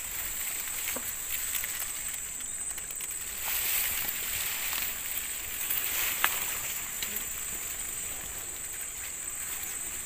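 A steady, high-pitched drone of insects from the swamp vegetation, with brief rustling of brush partway through and a couple of light ticks.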